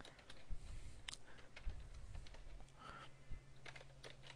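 Faint computer keyboard typing: scattered, irregular keystroke clicks over a low steady hum.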